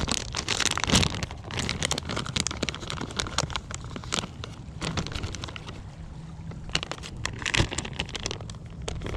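Crinkling and crackling of a plastic soft-plastic lure packet being handled and opened, loudest about a second in and again near the end, over a low rumble of wind on the microphone.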